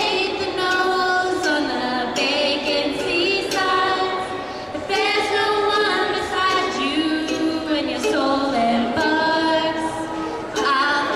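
Two women singing a song together, with ukulele strumming beneath the voices.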